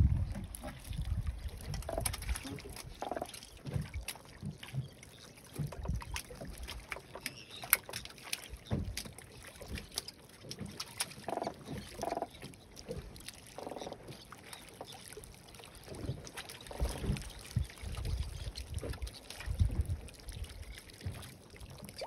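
Water slapping against a small wooden boat's hull, with uneven gusts of wind on the microphone and scattered knocks and clicks.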